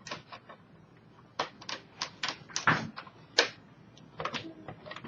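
Plastic screen bezel of a Dell Inspiron N5030 laptop being pried loose by hand: a string of irregular clicks and snaps as its clips let go, the loudest coming from about one and a half to three and a half seconds in.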